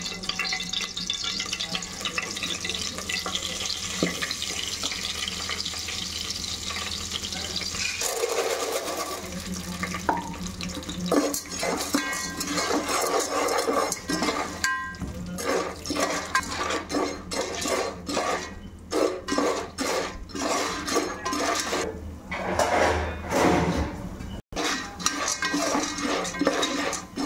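Hot oil sizzling in an aluminium pot. From about 11 seconds in, the unpopped popcorn kernels in the oil are stirred with a steel ladle, giving repeated scrapes, knocks and clinks of metal on the pot.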